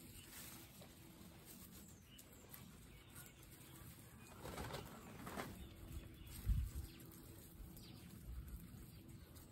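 Guinea pigs munching and tugging at fresh grass, with soft rustling of grass blades and hay. A dull bump about six and a half seconds in is the loudest sound.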